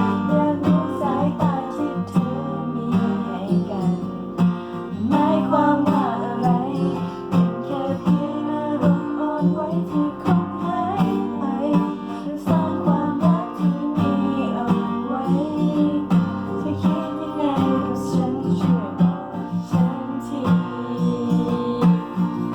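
Acoustic guitar strumming a steady rhythm with a melody line on top: the instrumental ending of a pop ballad.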